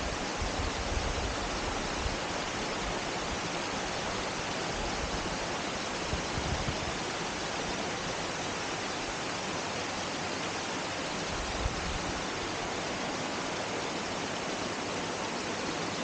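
Steady rushing of a rocky forest stream and small cascade, an even hiss of moving water, with a few faint low bumps near the start and about six seconds in.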